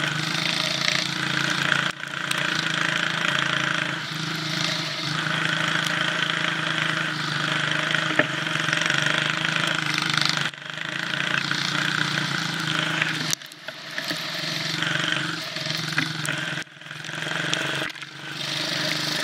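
A cyclekart's small engine running hard as the kart is driven in circles on snow. The revs drop briefly four times as the throttle is lifted, then pick up again.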